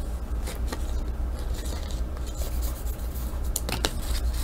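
Trading-card foil pack and cards being handled by hand: soft rustling and rubbing, with short sharp crinkles about half a second in and again near the end, over a steady low hum.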